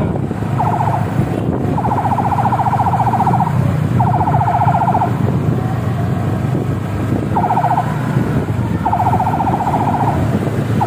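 Escort vehicle's electronic siren horn sounding in repeated buzzing blasts at one steady pitch, five in all, some short and some over a second long, over a constant rumble of engines and road noise from the moving procession.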